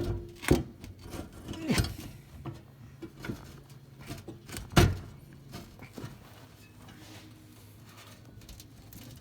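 Sporadic knocks and clanks of snowblower auger-housing parts being handled and fitted together by hand. There are three louder knocks in the first five seconds, with lighter taps between them, then only faint handling.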